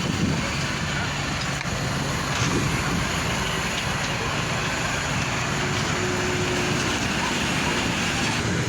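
A bus's diesel engine running steadily, a low even drone with no revving.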